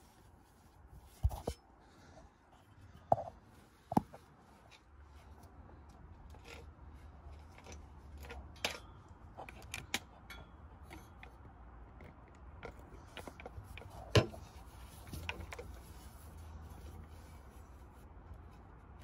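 Handling sounds from hands working under a car at the transfer box's filler hole: a few sharp clicks and knocks, the loudest about fourteen seconds in, with faint rubbing and scraping between them.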